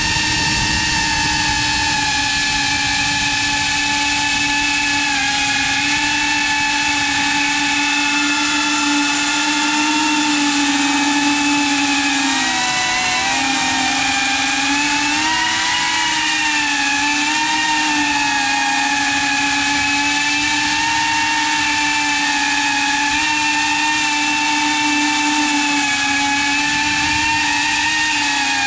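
iFlight Protek35 ducted cinewhoop FPV drone's four motors and propellers buzzing steadily in flight. The pitch wavers up and down with throttle changes about halfway through and again near the end.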